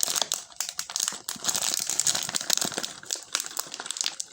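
Plastic LEGO packaging bag crinkling with irregular crackles as it is handled and worked open by hand.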